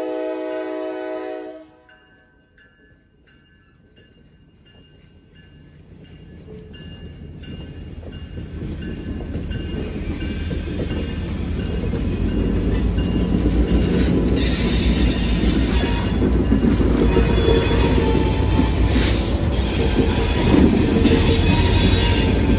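A diesel locomotive's multi-chime horn sounds briefly and cuts off about a second and a half in. Then the EMD diesel locomotives of a CSX geometry train close in and pass: the engine rumble grows steadily louder, joined by wheels squealing on the curved track.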